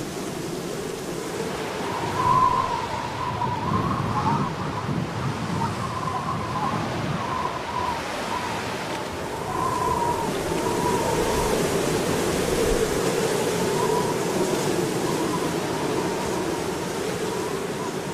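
Winter wind blowing steadily, a constant rushing noise with a faint wavering whistle running through it.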